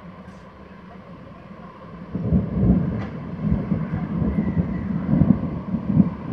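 Rolling thunder from an approaching thunderstorm: a low rumble that swells loud about two seconds in and keeps rumbling in repeated surges.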